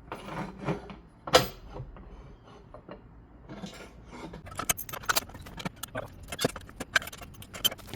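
Metal hand tools and bolt hardware clinking and clicking: a sharp metallic knock about a second and a half in, then a fast, irregular run of clicks and clinks through the second half.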